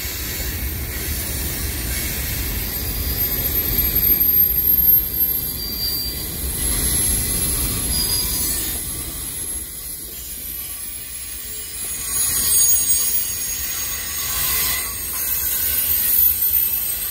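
Loaded freight cars of a long mixed freight train rolling past at close range: a steady rumble of steel wheels on rail, with thin high-pitched wheel squeal over it.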